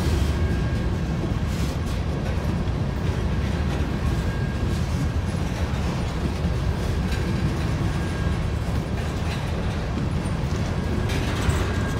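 Empty covered hopper cars of a freight train rolling past, with a steady low rumble of wheels on rail.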